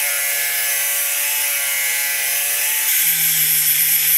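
Handheld angle grinder with an abrasive cut-off wheel cutting through a cast iron plate: a steady motor whine over a loud hiss of the wheel on the metal, the tone shifting slightly about three seconds in.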